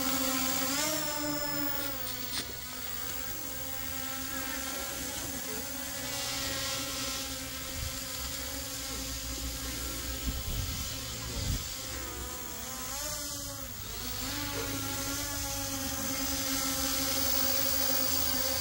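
H23 GPS quadcopter drone's motors and propellers whining steadily in flight. The pitch rises about a second in as it climbs, and dips and swings again around two-thirds through as it comes back down.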